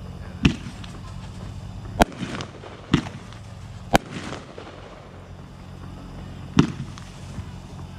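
A Hardcore Pyro Gunshot Bang Bang 25-shot, 500-gram firework cake firing aerial shells one by one, each giving a sharp bang. Five bangs at uneven spacing, about a second apart in the middle and with a longer pause before the last.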